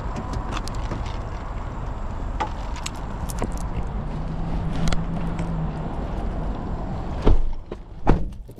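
Steady car engine rumble, then two heavy thumps about a second apart near the end, car doors shutting, after which the outside noise falls away sharply.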